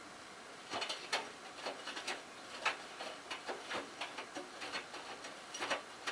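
Drum of a Miele Touchtronic W3033 front-loading washer starting to turn on the delicate cycle: wet laundry and wash water slosh and slap in an irregular run of splashes, beginning about a second in.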